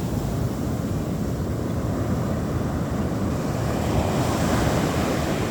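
Large ocean waves breaking on the beach, a continuous surf that swells into a louder rushing wash about four seconds in.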